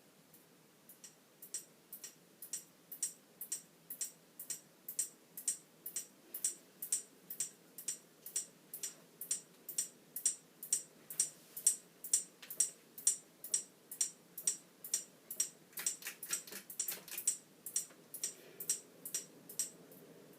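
1995 NuTone NuBreeze 52-inch ceiling fan running with a regular tick about twice a second. The ticks grow louder over the first few seconds, a few extra rapid clicks come about 16 seconds in, and they fade slightly near the end.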